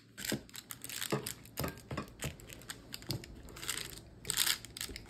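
Silicone spatula and fingers pressing and smoothing a sticky chocolate and puffed-grain mixture in a paper-lined glass baking dish: irregular soft clicks, crackles and scrapes, with two longer crinkly rustles a little past the middle.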